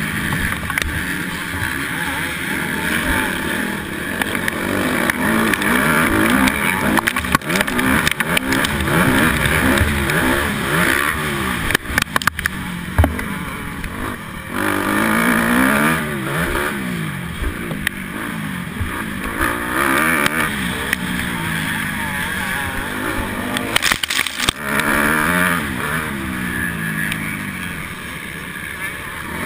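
Honda 250R motocross bike engine at racing speed, its revs rising and falling again and again as the rider accelerates, shifts and backs off for turns, over a steady rush of noise.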